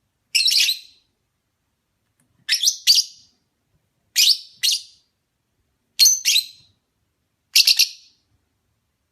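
Lovebird chirping in five short bursts, each of two to four sharp, high chirps, coming about every second and a half with silence between.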